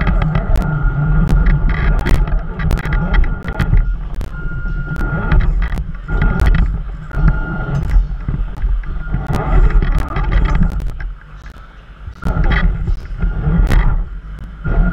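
RC crawler's electric motor whining in spurts as it drives, with frequent clicks and knocks from its wheels and chassis and a low wind rumble on the microphone. It pauses briefly about eleven seconds in, then moves again.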